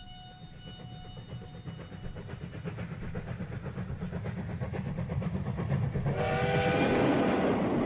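A train running with a fast rhythmic chugging that grows steadily louder as it approaches, and its whistle sounding at about six seconds in. A few held notes of music fade out at the start. The sound is a low-fidelity radio-cassette recording.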